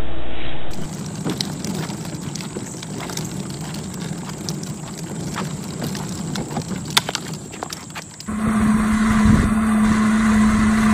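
Plastic wheels of a child's toy wagon rolling over a concrete sidewalk, with scattered irregular clicks and knocks. About eight seconds in this gives way to a louder, steady whine and rumble from a ride-on toy jeep's electric motor.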